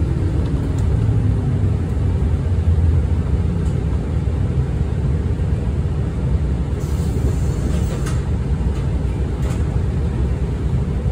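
Tokyu city bus heard from inside the cabin while under way: a steady low rumble of engine and road noise. A short hiss comes about two-thirds through, and light rattles or clicks come now and then in the second half.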